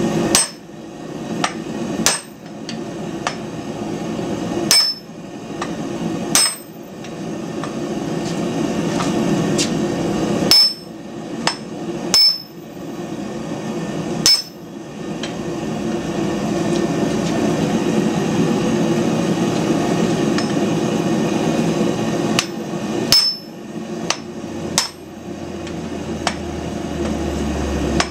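Hand hammer blows on the top of an upright, near-welding-heat bar of hard medium-carbon steel, upsetting its end: about nine sharp, ringing strikes, single or in pairs, with long pauses between them, over a steady background roar.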